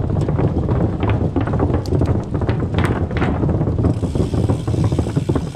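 Bicycle tyres rolling over the planks of a wooden footbridge: a loud rumble with rapid knocks as the wheels cross the boards. It drops away sharply near the end as the bike rolls off the bridge onto the dirt path.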